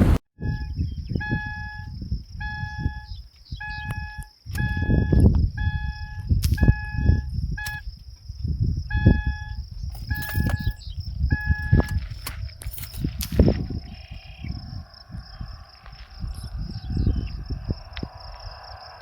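A repeated electronic beep, about one every two-thirds of a second, stops about twelve seconds in. Under it, gusty wind buffets the microphone, and a steady high insect drone runs throughout.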